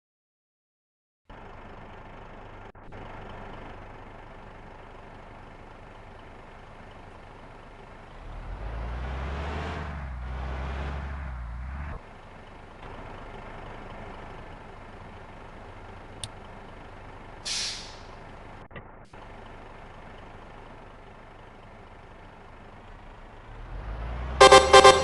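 Roadside traffic: a heavy vehicle passes with a low rumble and a swelling then fading rush about eight seconds in, a short hiss follows several seconds later, and near the end a bus's multi-tone 'telolet' musical horn starts to play loudly.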